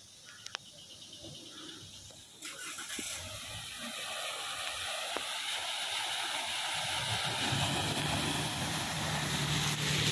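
Tyres swishing through standing floodwater as a car drives past. The splashing noise starts suddenly about two seconds in and builds, and a low engine hum joins it in the second half as the vehicle comes close.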